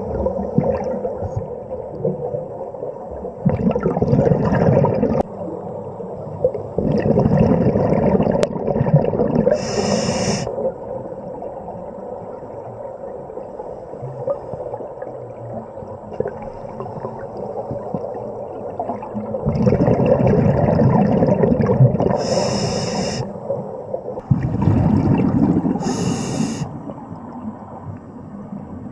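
Scuba divers breathing through regulators underwater: four long gushes of exhaled bubbles, three of them ending in a short high hiss, over steady underwater noise.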